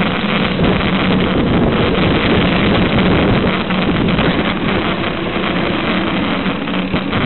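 Steady wind rushing over the microphone of a camera on a moving mountain bike, mixed with a continuous low hum and rumble from the bike rolling over the gravel track.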